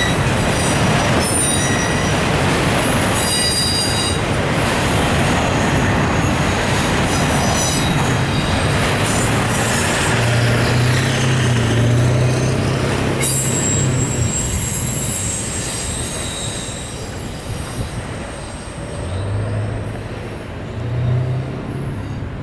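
Norfolk Southern autorack freight cars rolling past on steel rails, a dense rumble with high wheel squeals that come and go. The squealing dies away and the rumble eases in the second half.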